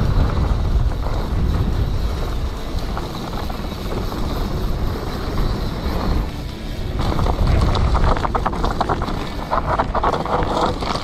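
Wind rushing over the camera's microphone and mountain bike tyres rolling fast over a dirt trail. From about seven seconds in, a run of rattling and clattering as the bike goes over rough ground.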